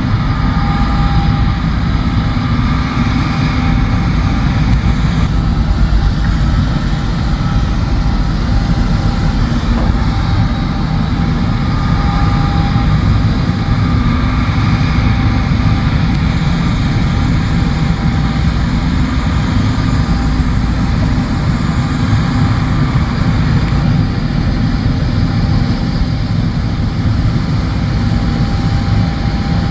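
John Deere combine harvester running steadily while harvesting soybeans: a loud, even engine and machinery drone with faint whining tones that swell and fade.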